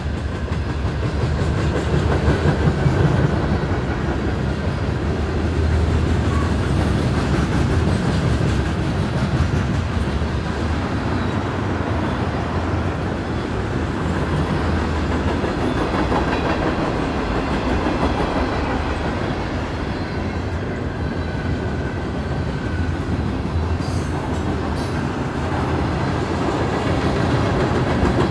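Freight cars of a passing mixed freight train rolling by close at hand: a steady rumble of steel wheels on rail, dense with wheel clicks over rail joints, and a faint steady high ring.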